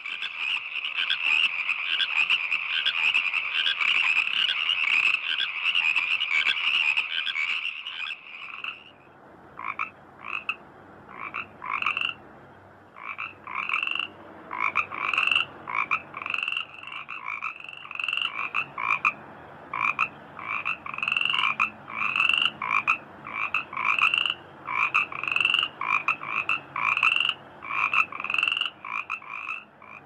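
Frogs calling: a dense, continuous chorus for the first eight seconds or so, which changes abruptly to separate short croaks repeated one or two times a second.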